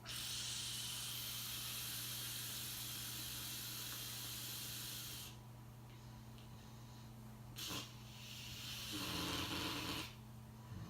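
A sleeping person snoring: a long airy breath lasting about five seconds, then after a pause a second breath that swells into a low rattling snore near the end. A steady low hum runs underneath.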